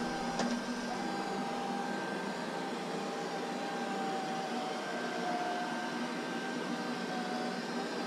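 IKOHS Netbot S15 robot vacuum cleaner running, its suction fan and drive giving a steady hum with a thin whine that shifts slightly in pitch now and then. A faint click comes about half a second in.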